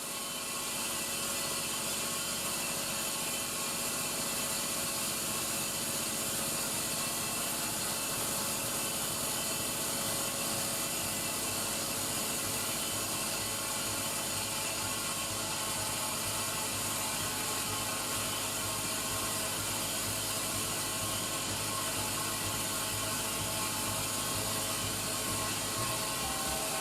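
Daihatsu Tanta L375S's 660 cc three-cylinder engine running at idle with a steady abnormal mechanical noise from the accessory belt area, a fault that the owner traces to a failing alternator.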